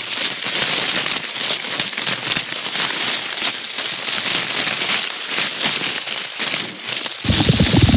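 Dense, steady crackling made of many small pops, with no bass in it. It stops abruptly about seven seconds in, as a different, louder sound with more low end begins.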